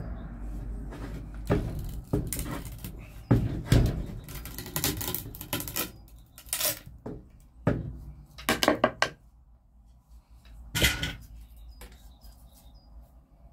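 Long-handled loppers crunching through a rotten, woodworm-riddled wooden stick shaft: a run of irregular cracks and snaps as the blades are worked through the wood, with the last loud crack about eleven seconds in. The sound echoes slightly inside a greenhouse.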